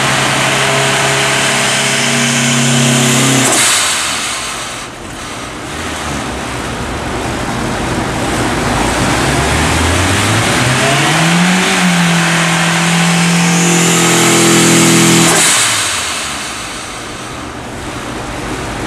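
Turbocharged Honda S2000 four-cylinder engine under load on a dyno, held at steady revs, then the throttle is shut and the revs drop with a hiss from the Synchronic blow-off valve venting. It revs up again, holds, and near the end vents once more as the throttle closes.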